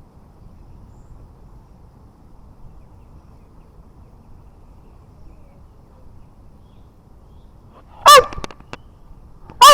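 Two short, loud, high-pitched animal calls about a second and a half apart, each rising and then falling in pitch, over a faint steady background.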